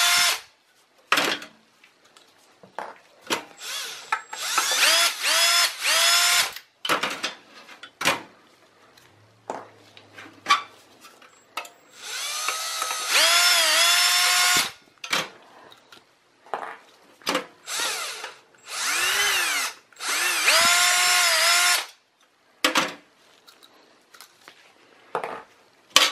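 Cordless drill-driver with a Phillips bit backing screws out of a steel hard-drive cage: repeated runs of motor whine, each rising in pitch as it spins up and dropping as it stops. Some runs are short pulses and a few last two to three seconds, with short clicks and knocks in the gaps between them.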